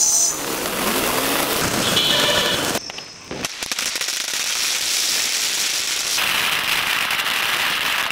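Ground fireworks: a fountain spraying sparks with a steady hiss and a brief whistle about two seconds in, then, about three seconds in, dense sputtering crackle of many small pops.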